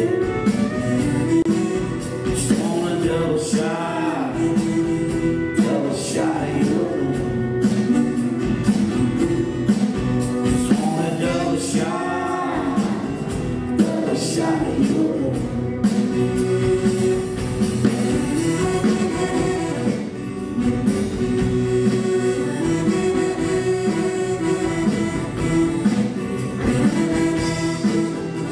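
Cajun band playing live: an accordion leads over acoustic guitar in a steady dance rhythm.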